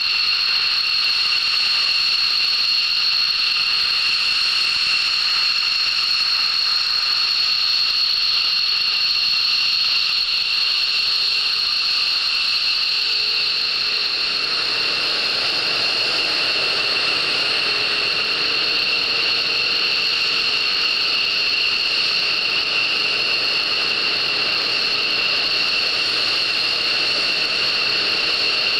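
F-15 Eagle's twin Pratt & Whitney F100 turbofans at taxi power: a steady, loud, high-pitched whine with two piercing tones over a rush of engine noise. A lower rumble joins in about halfway through as the jet turns.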